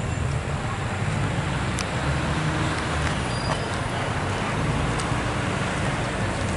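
Steady street traffic noise, a low rumble of road vehicles.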